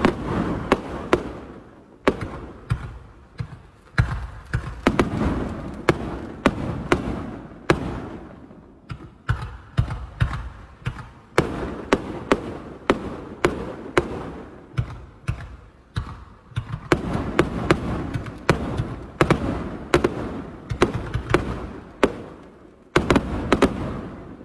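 Consumer fireworks cakes firing in rapid succession: a run of sharp launch thumps and bursting reports, about two or three a second, with a short lull about eight seconds in and a brief gap near the end.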